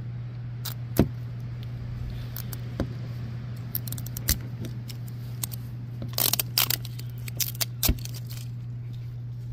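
Plastic wrapper being picked at and peeled off a plastic Mini Brands capsule ball: scattered sharp clicks and a burst of crinkling crackles about six to seven seconds in. A steady low hum sits underneath.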